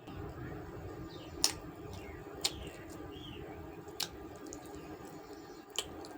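Someone eating chicken curry: chewing with wet mouth clicks and smacks, about four sharp ones spread through, over a steady low background hum.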